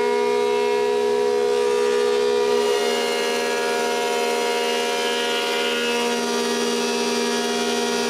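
Combination jointer-planer running as a thickness planer, with its dust collector running alongside, while boards are fed through. It makes a steady, even machine whine.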